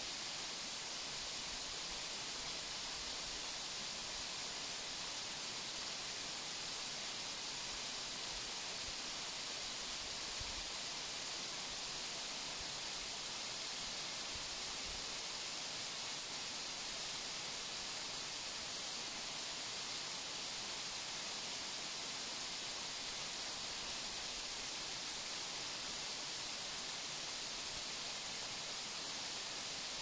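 Waterfall: a steady, unbroken rush of falling water, a constant hiss weighted toward the high end.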